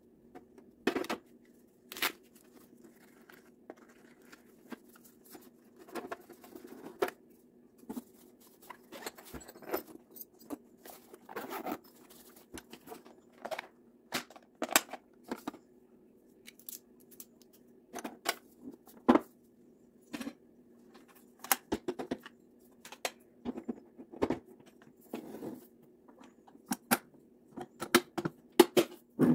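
Tools and plastic tool cases being handled and packed into a steel .50-cal ammo can: irregular clicks, taps and knocks of plastic and metal against the can, with a few louder knocks near the end. A steady low hum runs underneath.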